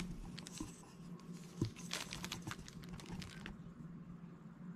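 Quick, light taps and clicks of diamond-painting work: resin drills being picked up and pressed onto the sticky canvas. The tapping thins out about three and a half seconds in.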